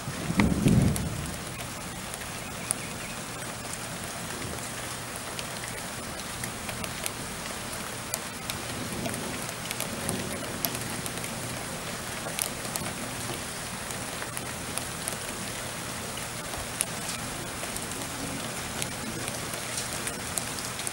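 Steady rain falling, an even hiss with scattered drop ticks. A brief low rumble comes about half a second in.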